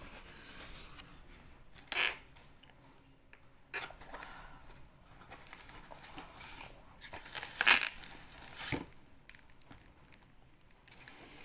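Plastic bubble wrap and a cardboard box being handled as a wrapped package is pulled out: steady crinkling and rustling with a few louder sharp bursts, the biggest about two seconds in and again past the middle.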